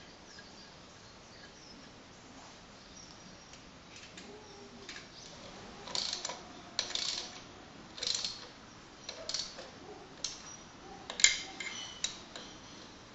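Metal engine parts clinking and knocking as the idler gear housing and its bolts are refitted on a classic Mini A-series engine. There are a string of separate sharp clinks over several seconds after a quiet start, the sharpest near the end.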